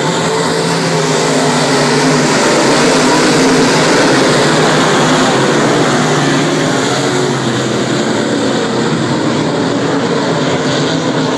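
A pack of dirt modified race cars' V8 engines running hard on the track, many engine notes overlapping in a loud, steady drone. It grows a little louder a couple of seconds in as the cars pass close by.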